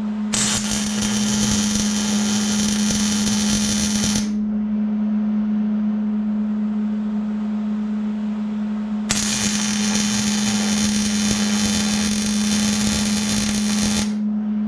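Wire-feed welder arc crackling and hissing as a bead is laid on the steel canopy joint, in two runs of about four and five seconds with a pause between them. A steady low hum sounds under it.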